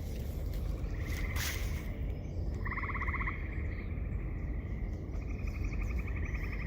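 Frogs calling from the marsh in short pulsed trills, one after another, with a longer, faster trill near the end, over a steady low rumble.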